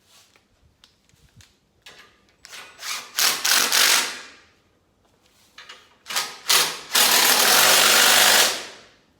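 A power tool working steel in two bursts, a short one and then a longer, louder one, each winding down at the end.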